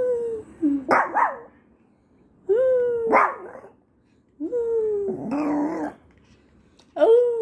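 Pomeranian (dwarf German spitz) howling in four short calls about two seconds apart, each starting on a held note that dips slightly, then breaking into a higher, rougher yelp.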